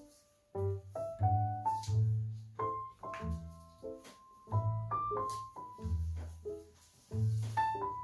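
Background piano music: a melody of single notes over low bass notes.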